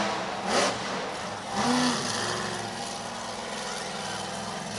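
Monster truck engine running in a stadium, heard from far off in the stands, with a short rev about two seconds in and a brief burst of louder noise about half a second in.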